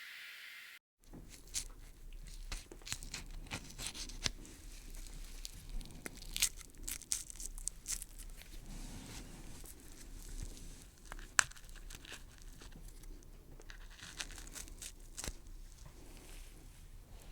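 Horror gore sound effect of tearing and crunching: an irregular run of crackles and snaps, like flesh and gristle being pulled apart, starting after a brief silence about a second in, with one sharp snap near eleven seconds in.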